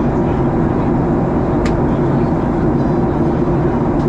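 Steady drone inside an airliner cabin in flight: engine and airflow noise, with one brief click about one and a half seconds in.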